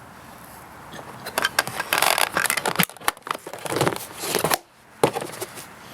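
Scraping, rustling and clicking as the seat of a Kawasaki KFX 400 ATV is unlatched and lifted off. The noise comes in two busy stretches, with a sharp click near the end.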